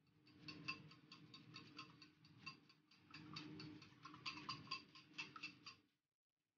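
Faint, quick clicking of a wire whisk beating egg in a ceramic bowl, its tines tapping the bowl several times a second. The clicking stops suddenly near the end.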